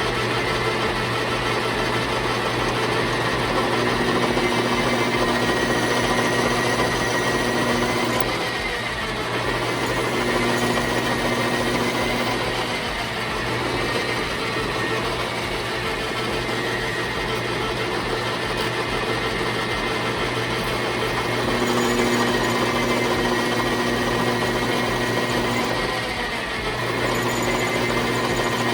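Metal lathe running steadily while drilling a hole through a bolt, a steady motor hum and whine with a lower tone that comes and goes several times as the drill feeds in and backs out.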